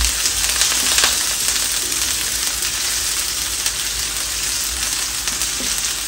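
Sliced onions sizzling steadily in hot oil in an electric frying pan, with a few light scrapes of a silicone spatula stirring them as they fry toward light brown.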